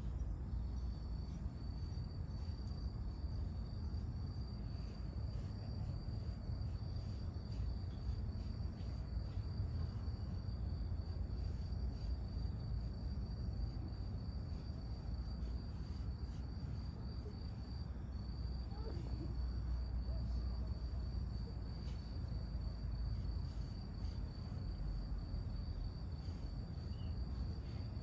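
A cricket trilling steadily in a fast-pulsed high note, with one short break about two-thirds of the way through, over a steady low background rumble.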